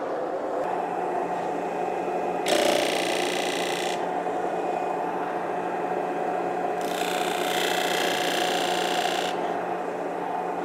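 Central Machinery 12-inch disc sander running with a steady hum, with the dust collector going. Twice a wooden cutting board's edge is pressed against the coarse-grit disc, giving a rasping sanding sound of about a second and a half, then about two seconds.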